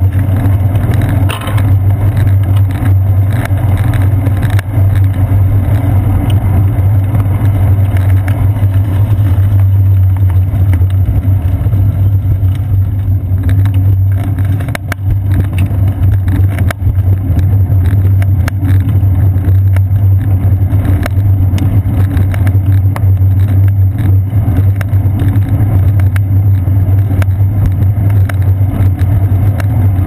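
Loud, steady low rumble of wind and road vibration picked up by a seat-post-mounted GoPro Hero 2 on a moving bicycle.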